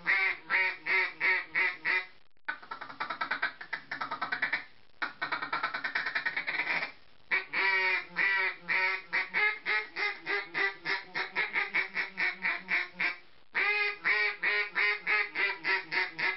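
Timber duck call, a quieter-toned mallard call, blown by mouth in strings of quacks. Between about 2.5 and 7 seconds in it switches to a fast, rapid feeding chatter, then goes back to longer quack sequences that stop near the end.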